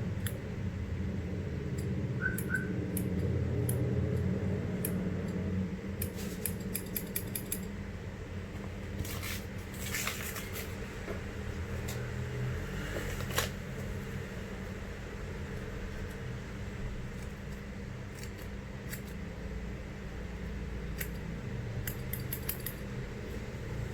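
Scattered light clicks and clinks of small metal hand tools from a coil-building kit being handled, in small clusters, over a low steady rumble.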